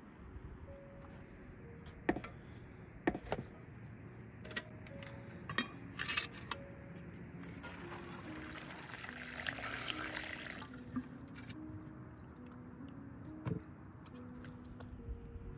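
Water poured from a metal kettle, a steady splashing for about three seconds around the middle, after several sharp clinks and knocks of raw meat and metal bowls being handled. Soft background music runs underneath.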